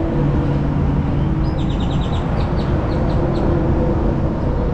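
Steady low rumble of nearby highway traffic, with a bird giving a quick run of short, high chirps starting about a second and a half in and lasting about two seconds.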